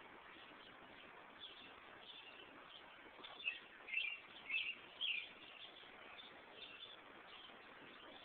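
A bird chirping: four short high-pitched chirps about half a second apart around the middle, over a faint steady hiss.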